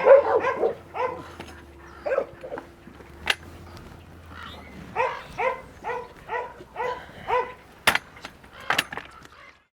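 Dog barking in short, repeated barks: a burst at the start, a couple more about two seconds in, then an even run of about six barks, roughly two a second. A few sharp clicks sound in between.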